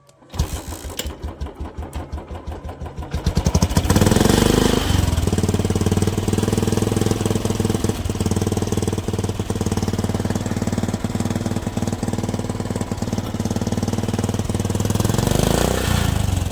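Tractor diesel engine, fitted with a Royal Enfield Bullet motorcycle silencer, cranking with a quick even beat for about three seconds, then catching, revving briefly and running steadily.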